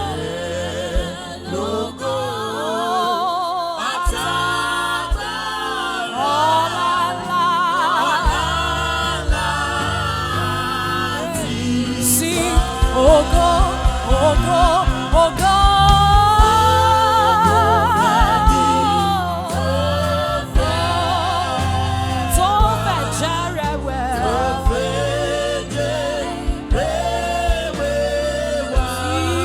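Gospel worship song: voices singing a melody with vibrato, joined by a group of singers, over an instrumental backing whose beat becomes fuller about eight seconds in.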